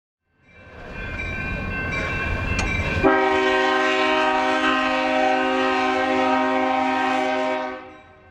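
Diesel locomotive passing with its engine rumbling, then about three seconds in its multi-chime air horn sounds one long, steady chord that is held for several seconds before the sound fades out.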